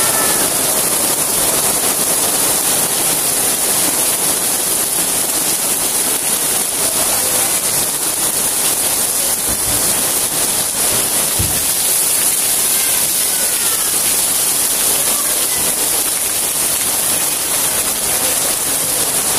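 Heavy downpour of rain pouring steadily onto a wet street and market stall awnings, a continuous dense hiss.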